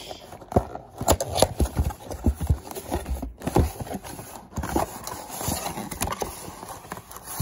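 A cardboard trading-card box being opened by hand, its top flap pried up and folded back. Irregular knocks, scrapes and rustles of the cardboard against fingers and the table.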